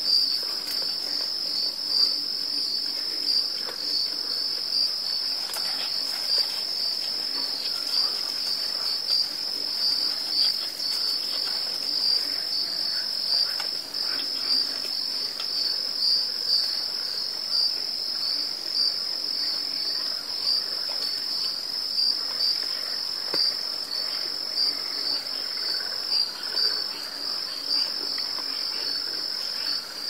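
Night insect chorus, crickets trilling in a continuous, steady, high-pitched drone, with only faint scattered sounds beneath it.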